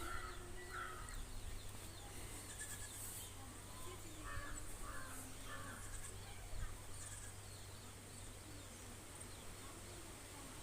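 Crows cawing faintly in the background, a couple of short calls at the start and a run of three about four seconds in, over a low steady hum.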